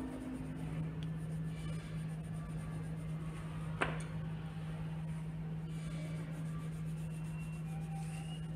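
A steady low hum, with one sharp click about four seconds in as a coloured pencil is swapped for another from the pile on the table.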